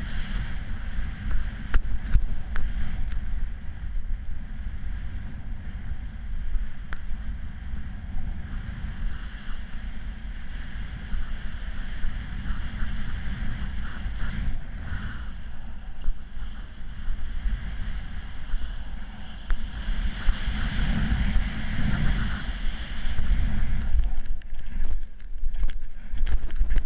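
Wind rushing over a GoPro's microphone as a snowboard runs through powder snow, a steady low buffeting with the hiss of snow under the board and a few brief knocks.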